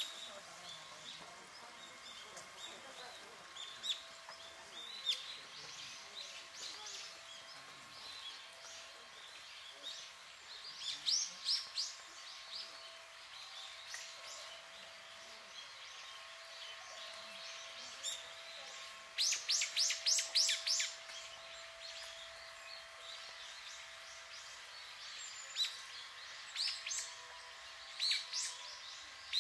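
Birds calling: groups of sharp, high chirps, with a fast run of about ten calls a little past the middle and more near the end.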